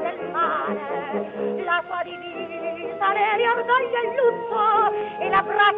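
Early-1920s acoustic gramophone recording, dull with no treble above the upper midrange: a female singer holding notes with a wide, fast vibrato over a rhythmic accompaniment.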